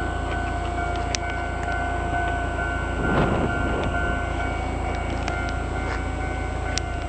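Steady traffic rumble with one vehicle passing about three seconds in, under a steady hum.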